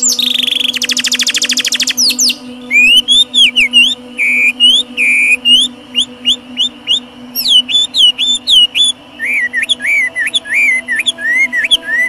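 A domestic canary sings a very fast rolling trill. About two seconds in, a Chinese hwamei takes over with loud, varied phrases of slurred whistled notes.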